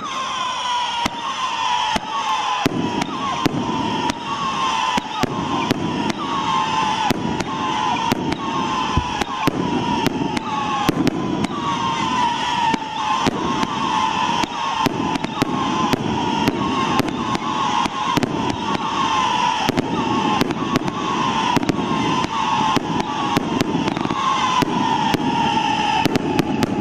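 Primed Pyrotechnics Furious Angels firework cake firing shot after shot. Each shot rises with a screaming whistle, and the whistles overlap into a continuous, slightly falling shriek. Sharp bangs come about twice a second throughout.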